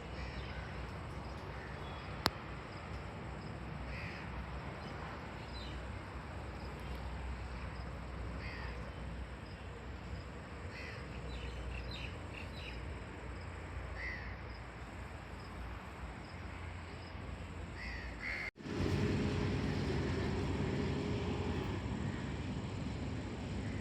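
Crows cawing, short calls every few seconds over a steady background hiss, with a single sharp click about two seconds in. Near the end the sound drops out for an instant and gives way to a louder steady low drone.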